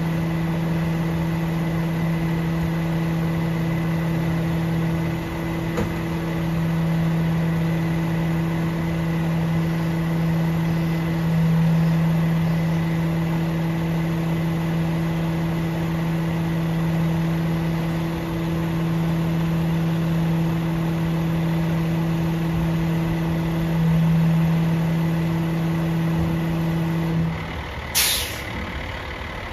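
Rear-loader garbage truck running with a steady low hum that stops about 27 seconds in, followed a moment later by a short, sharp hiss of air, typical of the air brakes being released.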